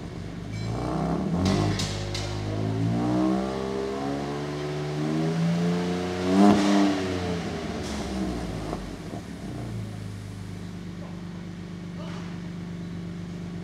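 Ford Ranger Raptor's engine revved while stationary, its exhaust note climbing in pitch over about six seconds, then dropping back to a steady idle. A few sharp clicks come about two seconds in.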